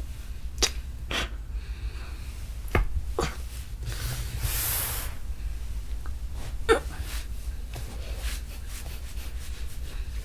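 Several sharp pops from the spinal joints of the upper and mid back as it is pressed down for an adjustment, the loudest a little under seven seconds in. A long breathy exhale about four seconds in.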